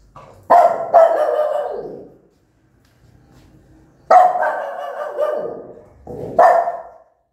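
Small white mother dog barking loudly in three bouts: two barks about half a second in, a run of barks around four seconds in, and two more near the end. Each bout rings on briefly off the hard tiled room.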